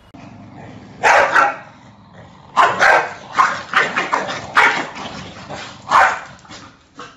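Corgi barking repeatedly in short, sharp barks: a pair about a second in, then a quick string of them after a short pause.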